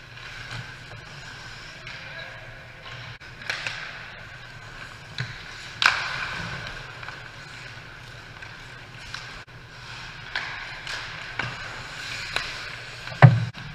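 Pickup ice hockey play: skates scraping the ice with sharp clacks of sticks and puck, a strong crack about six seconds in and a loud heavy thud near the end.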